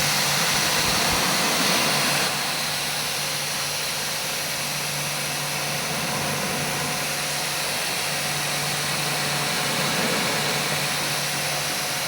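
A machine running steadily, a continuous hiss with a low hum, dropping slightly in level about two seconds in.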